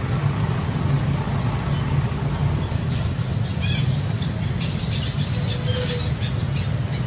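Young monkey squealing in a string of short, high-pitched cries, one sliding down in pitch, starting about three seconds in, over a steady low rumble.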